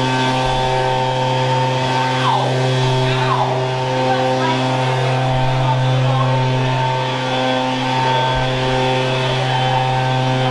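Small gas engine of lawn-service equipment running at a steady pitch.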